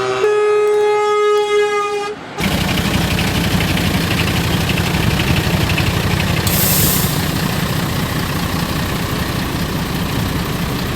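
A vehicle horn holding one note, stepping slightly lower just before it cuts off about two seconds in. A steady, noisy vehicle rumble follows, with a short hiss near the middle.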